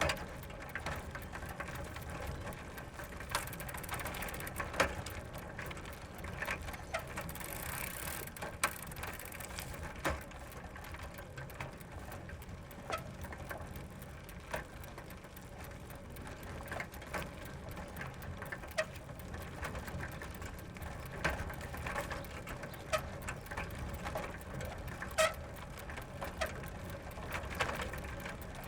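Bicycle moving slowly in a continuous run: a steady low rumble of the rolling tyres, with irregular mechanical clicking and ratcheting from the chain and freewheel, and a few sharper clicks along the way.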